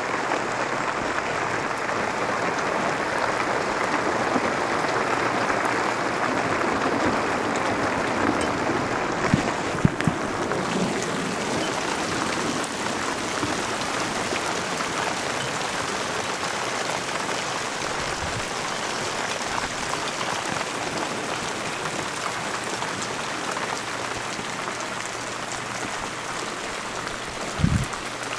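Hail, small stones just under marble size, falling steadily on a patio and hot tub cover: a dense, even hiss, with a few sharper knocks about nine to ten seconds in and a thump near the end.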